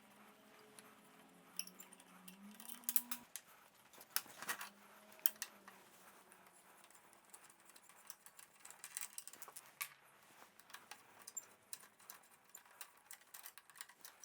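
Scattered light metallic clicks and rattles of hand tools and loose parts as the handlebars come off a motorcycle, with a faint low hum in the first few seconds.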